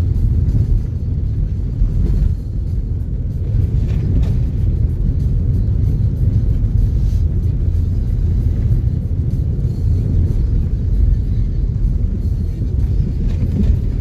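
Steady low rumble heard from inside a moving vehicle's cabin: road and engine noise as it drives on a snow-covered road.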